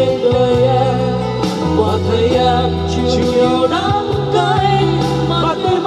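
Karaoke music for a Vietnamese love ballad playing between sung lines. It has a melody over a bass line that changes notes every second or two.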